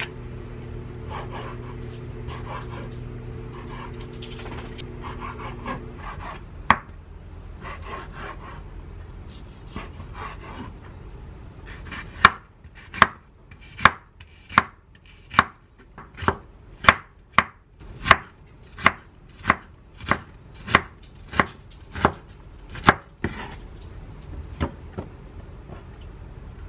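Chef's knife cutting on a wooden cutting board: soft, uneven cuts through raw salmon, then a steady run of about sixteen sharp knocks, roughly three every two seconds, as it slices an onion. A steady low hum runs under the first six seconds.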